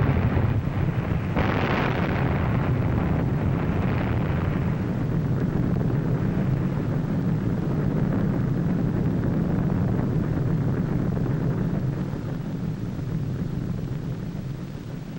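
Explosion rumble on an old film soundtrack, accompanying the atomic bomb blast: a long, low, noisy rumble that surges again about a second and a half in, then slowly fades near the end.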